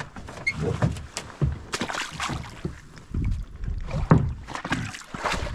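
Canoe paddling at a racing pace: irregular paddle strokes and water splashing against the canoe.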